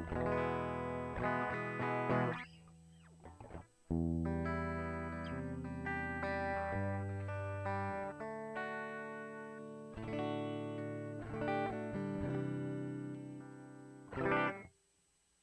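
Electric guitar played through an STL Tones AmpHub Vox AC30 amp simulation: ringing chords and single notes. There is a short lull about three seconds in, and a last strum cuts off shortly before the end.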